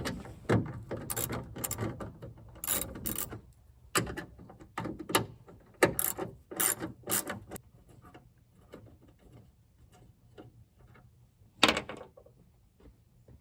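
A ratchet with a 10mm socket clicks in quick runs as tail-light mounting bolts are undone. The clicking thins out after about seven seconds, and there is one louder clack near the end.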